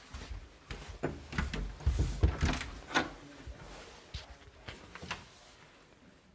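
A wooden closet door being opened, with a run of knocks and clatters in the first three seconds, then a few fainter knocks.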